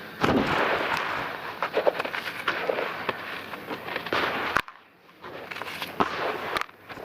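Dry, gritty mud crumbling and being crushed, a dense run of crisp crackling crunches with sharp cracks as chunks break. The crunching stops briefly about two-thirds of the way through, then starts again.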